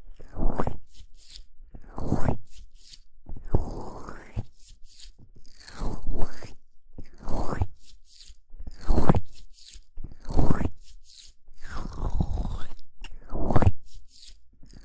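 Hands rubbing and cupping over the ear-shaped capsules of a binaural microphone: close, crunchy strokes with a deep rumble, about nine in all, one every second and a half or so.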